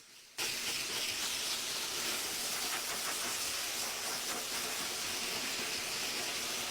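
Pet blow dryer running, a steady rushing hiss of air that cuts in about half a second in and holds level.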